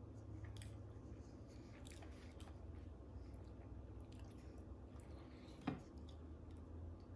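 Faint chewing and wet mouth sounds over a low, steady room hum. About three quarters of the way through comes a single short knock as a glass of milk is lifted off the wooden table.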